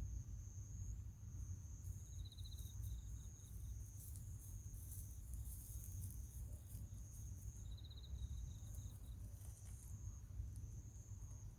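Insects calling: a steady high-pitched trill goes on throughout, and a second insect gives short pulsed chirps twice, about two seconds in and again near eight seconds. A low rumble runs underneath.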